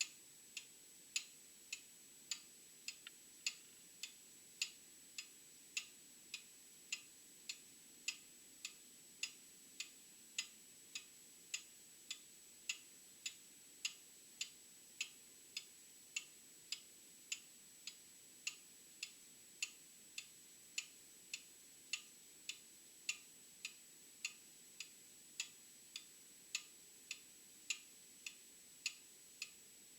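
Old mechanical clock ticking steadily, a little under two ticks a second, with an alternating tick-tock of louder and softer beats. A faint steady high whine sits underneath.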